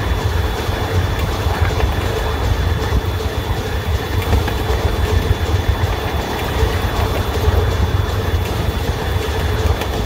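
Small-gauge locomotive running along the track, a steady low rumble of the moving train with a thin constant whine high above it.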